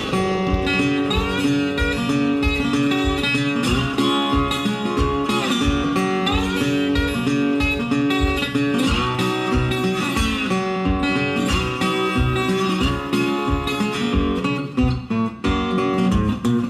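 Background music: an instrumental country-style stretch led by acoustic guitar, with a steady beat.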